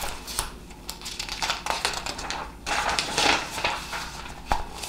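Pages of a large grid-paper sketchbook being flipped and handled: a run of rustles and light taps, busiest in the middle.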